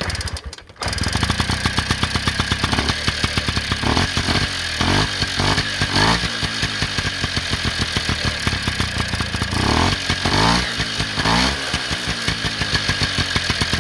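Yamaha Towny moped's small two-stroke engine on its stock exhaust, catching about a second in and then running at idle, revved up twice with the throttle.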